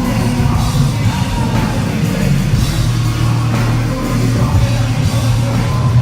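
Live rock music played loud through a club PA: heavy bass and drums with distorted guitar, recorded from the crowd.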